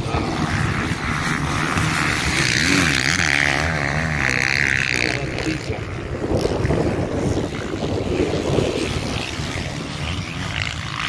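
Motocross bike engines racing on the track, their pitch rising and falling as riders open and close the throttle.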